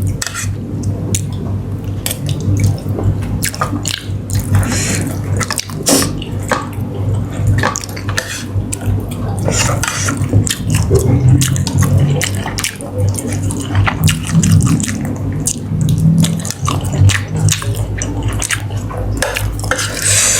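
A person eating close to the microphone: wet chewing and mouth sounds with frequent short clicks and ticks, over a steady low hum.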